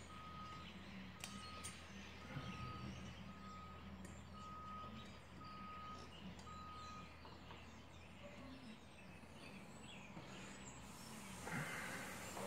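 Faint beeping of a distant vehicle's reversing alarm, a single tone about once a second that stops after about seven seconds. Faint small clicks of pliers and metal parts being handled, and a brief rustle near the end.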